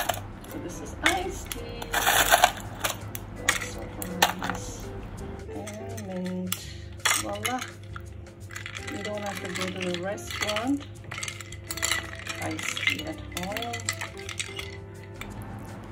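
Ice cubes clinking in a drinking glass of tea as a long spoon stirs and knocks against the glass, with sharp clinks coming thick and fast in the first few seconds and more sparsely after.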